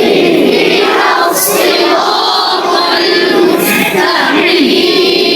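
A class of children reciting a verse of the Quran together in Arabic, in unison with long drawn-out vowels, repeating the teacher's line as a recitation drill.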